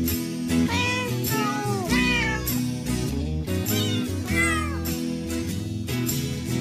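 Cat meowing several times, short meows that rise and fall in pitch, in two clusters, over background music.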